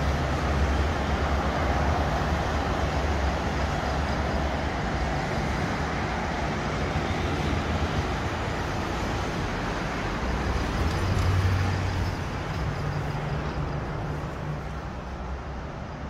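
Steady road traffic noise with a low rumble, swelling briefly about eleven seconds in and growing quieter near the end.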